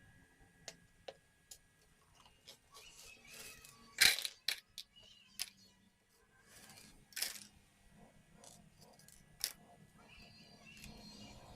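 Scattered clicks and knocks of small hard parts being handled, the loudest about four seconds in, with a short scraping sound a little after seven seconds.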